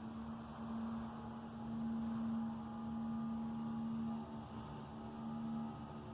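A steady low droning hum at one pitch, swelling louder about a second and a half in and easing back after about four seconds, with fainter higher tones joining it later.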